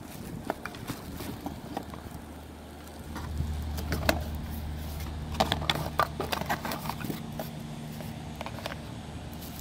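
Cardboard box and paper packaging being handled: rustling with a cluster of sharp clicks and taps in the middle. Under it, from about three seconds in, a steady low motor hum.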